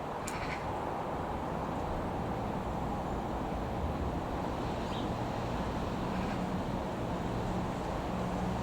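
Turboprop engines of an Airbus A400M Atlas running at a distance: a steady rumble, with a low hum that grows stronger in the second half.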